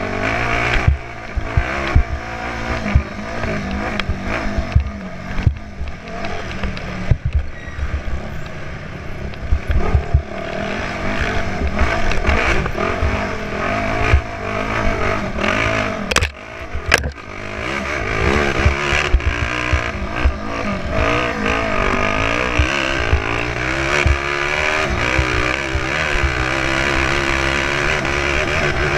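Honda 450R's single-cylinder four-stroke engine revving up and down under hard riding, heard from a camera mounted on the machine, with frequent knocks and rattles as it is ridden over rough, rocky ground. About 16 seconds in the throttle is briefly chopped, and in the last third the revs are held higher and steadier.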